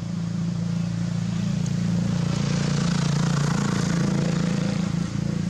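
A motor vehicle engine running steadily, swelling louder and then easing off, as a vehicle passing does.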